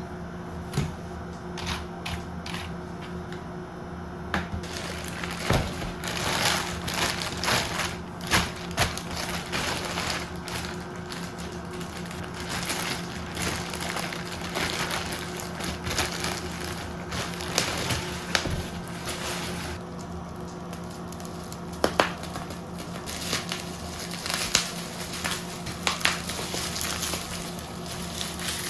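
Packaging being handled and opened: irregular rustling, crinkling and sharp clicks of cardboard and plastic, over soft background music.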